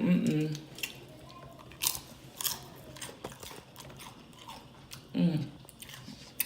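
Close-up chewing and crunching of Flamin' Hot Doritos nachos, with a few sharp crunches about two seconds in. A short hum from the eater comes right at the start and again about five seconds in.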